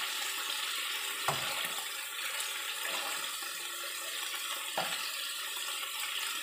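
Garlic-marinated shrimp frying in oil in a nonstick wok, a steady sizzle and spatter: the shrimp went in cold, straight from the fridge. A spatula knocks against the wok twice, about a second in and again near five seconds.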